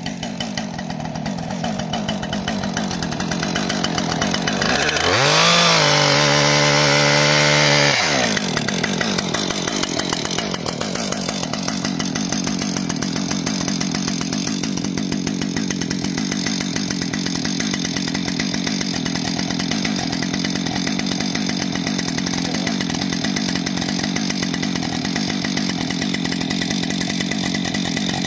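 Husqvarna two-stroke chainsaw running. It revs up to full throttle about five seconds in, holds there for about three seconds, drops back, and then idles steadily for the rest of the time.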